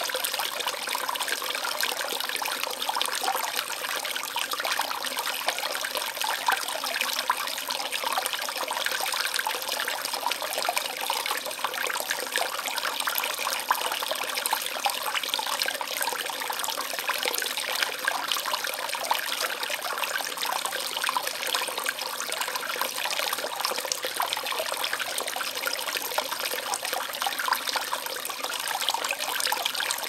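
Small woodland brook babbling steadily: a continuous trickle and splash of shallow running water, full of fine droplet sounds, with little low rumble.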